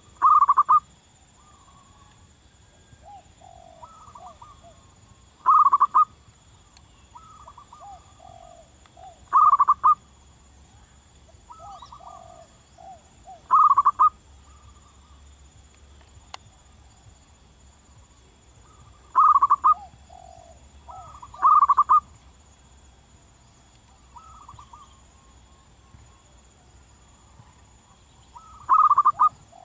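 Zebra dove (perkutut) cooing: a loud, short rolling phrase every few seconds, seven in all, with softer falling coos between them.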